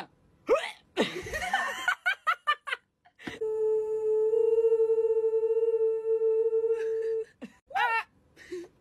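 Short bursts of voice and laughter, then one steady hummed note held at a single pitch for about four seconds, followed by a brief vocal sound near the end.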